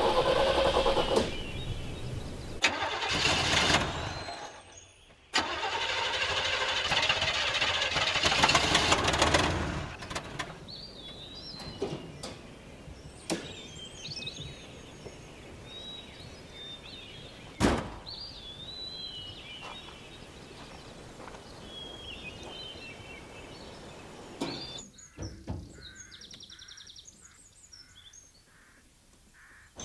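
Vintage Peugeot 203's engine turned over in two long attempts with a short break between them, the car standing still; the owner then opens the bonnet, so the car will not run properly. Afterwards birds chirp, with one sharp knock about two-thirds of the way through.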